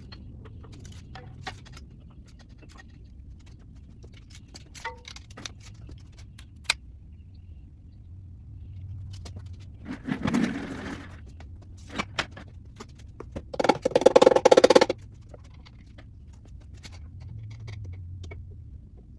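Metal engine parts and hand tools clicking, clinking and scraping during small-block teardown. There is a scraping burst about ten seconds in and a louder rapid rattle a few seconds later.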